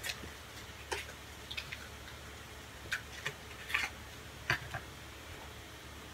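Washi tape in its plastic packaging handled by hand: scattered light clicks and crinkles, about eight in the first five seconds.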